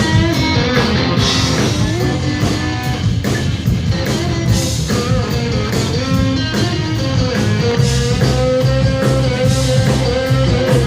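Live rock band playing an instrumental break with no vocals: a guitar carries held and bending notes over bass and a drum kit keeping a steady beat.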